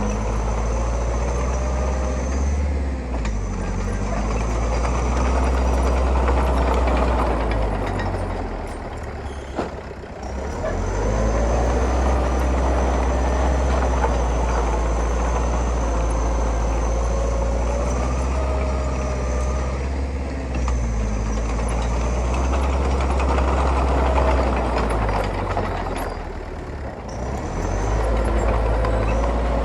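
Heavy diesel engine of construction machinery running and working under changing load, its low rumble easing off and picking up again twice: around ten seconds in and near the end. A steady high-pitched whine sits above the engine for most of the time.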